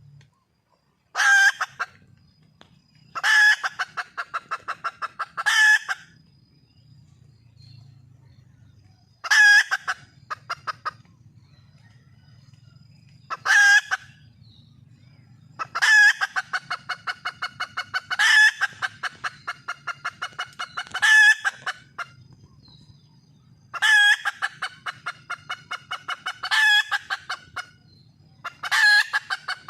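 Red junglefowl hen calling again and again: loud sharp notes, each running into a quick train of clucks for a second or two, repeated every two to three seconds. A hen calling for a mate.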